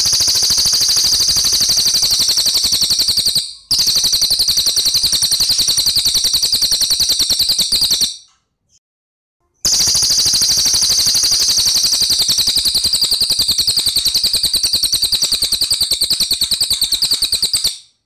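Crested jay (cililin) calling with a loud, tight, rapid rolling rattle. It comes in three long bouts, with a brief break at about three and a half seconds and a gap of about a second and a half after eight seconds.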